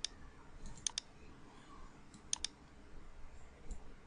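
Computer mouse clicking: three pairs of short sharp clicks, a press and release each time, close to the start, about a second in and about two and a half seconds in.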